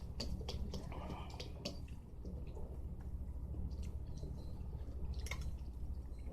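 Eating sounds: chewing with small clicks and taps, bunched in the first two seconds and again about five seconds in, over a steady low hum.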